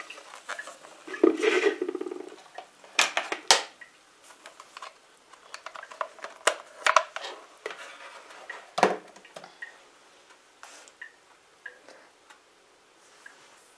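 Metal hand-mixer beaters knocking and scraping against a glass bowl and working through lumps of freshly churned butter that has separated from the buttermilk. Scattered clicks and knocks, with a short buzz about a second in.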